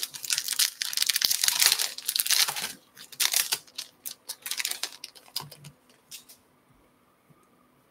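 Foil wrapper of a 2022 Bowman baseball card pack being torn open and crinkled by hand. There is dense crackling for about the first three seconds, then scattered crinkles that stop about six and a half seconds in.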